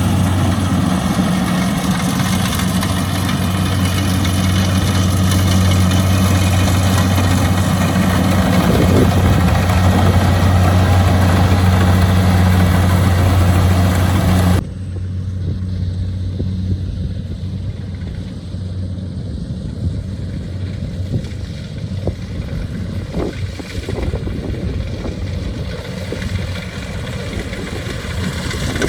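Kubota DC-70 Plus combine harvester's diesel engine running steadily under harvesting load, a loud low hum. About halfway through, the sound drops suddenly to a quieter, duller running.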